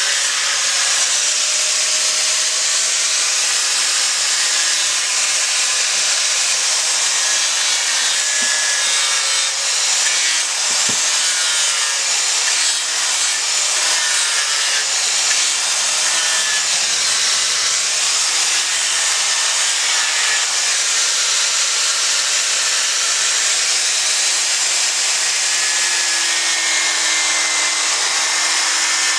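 Electric angle grinder with its disc grinding into a block of monkeypod wood, a steady loud grinding noise with the motor's whine wavering in pitch.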